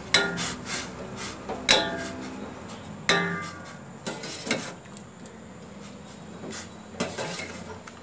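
A ladle stirring chicken bones being blanched in boiling water in a stainless steel pot, knocking against the pot's side now and then: about five sharp clinks that ring briefly, the loudest near the start and about a second and a half in.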